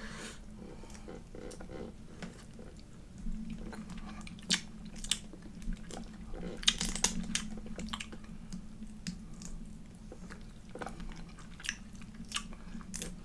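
Close-up chewing and small wet clicks and crackles of someone eating boiled Dungeness crab meat picked from the shell, over a low steady hum.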